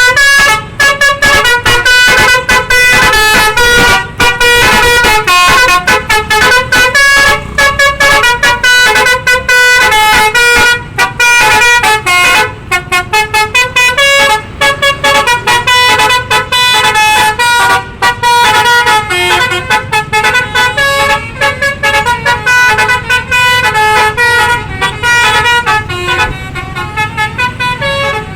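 A bus's 'basuri' musical air horn playing a fast tune, a loud run of short notes stepping up and down with a few brief breaks.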